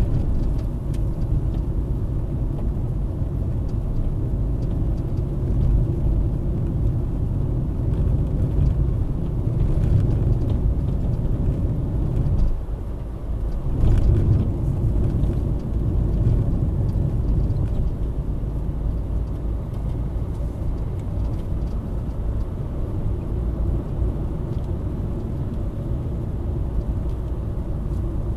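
A car driving on a road, its engine and tyre noise heard from inside the cabin through a dash cam's microphone. It is a steady low rumble that drops away briefly about halfway through and then returns.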